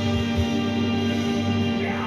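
Background music with sustained chords and a steady bass line.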